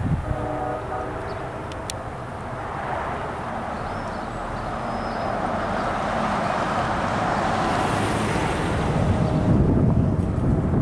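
A pickup truck drives past on the roadside lane, its tyre and engine noise swelling to a peak and then easing off. A short distant horn sounds in the first second or so.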